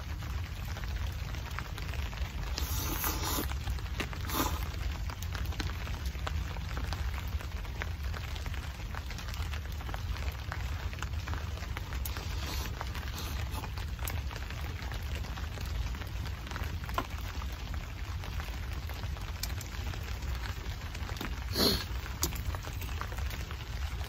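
Steady rain falling on a tarp overhead, with the crackle of a small wood fire in a folding steel stove. Three short, louder sounds stand out, the loudest about three-quarters of the way through.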